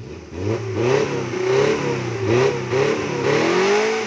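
Suzuki Jimny off-road 4x4 engine revving hard as the vehicle pulls forward into the mud. The pitch rises and falls several times as the throttle is blipped.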